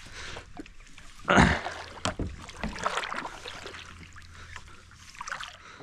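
Water splashing, with a dull thump about a second and a half in and scattered light clicks and knocks, as a small hooked fish is brought in.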